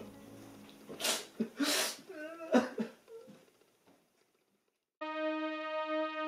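A young man sobbing: two sharp, gasping breaths and a few wavering, wailing sobs. The sobbing stops and there is a second or so of silence, then slow music of long held notes begins.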